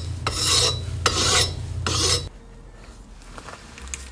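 A hand file rasping across the repaired aluminium cooling fins of a motorcycle cylinder head in repeated back-and-forth strokes, about three in the first two seconds, to dress the welded fins to shape. The filing stops a little after two seconds in.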